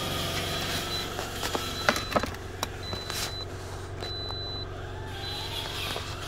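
Steady low hum from a parked Toyota Corolla, with a thin high beep coming and going several times and a few sharp clicks of handling near the dashboard.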